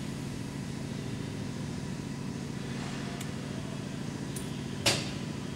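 Steady electric hum of a 38-inch double-sided polishing machine running, with a single sharp click near the end.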